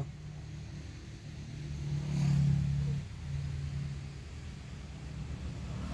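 Low motor-vehicle rumble over a steady low drone, swelling about two seconds in and easing off a second later.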